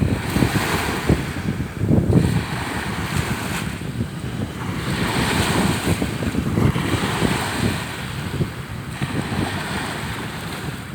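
Sea waves washing onto the shore, the hiss swelling and ebbing every few seconds, with wind buffeting the microphone throughout.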